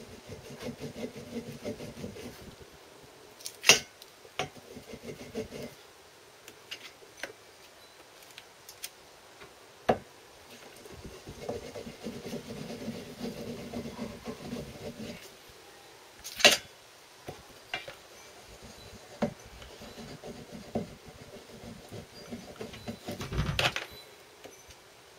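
Ball peen hammer tapping gasket paper against the edge of a two-stroke engine's cylinder flange to cut out a new paper gasket. It comes as spells of quick light taps, with a few sharper single blows in between.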